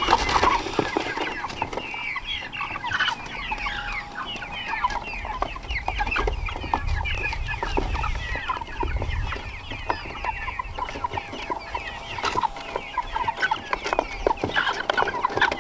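A flock of Jumbo Cornish Cross broiler chickens calling continuously, many short calls overlapping one another.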